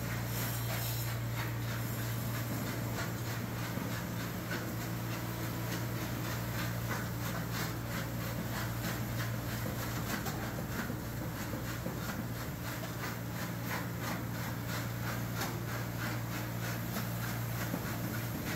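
Jaw crusher running, its motor giving a steady low hum while chunks of hardrock ore crack and rattle between the jaws in many quick, irregular clicks and knocks.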